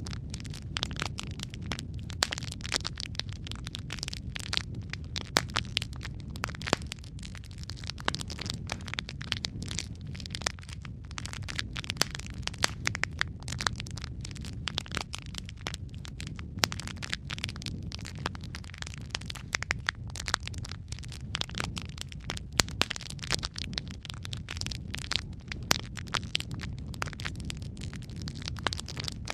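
Wood fire burning in a fireplace: logs crackling and popping irregularly over a steady low rumble of flame.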